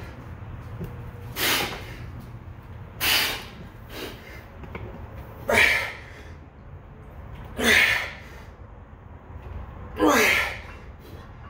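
A man's sharp, forceful breaths of exertion, five in all, about one every two seconds, one with each rep as he pulls himself up to a barbell.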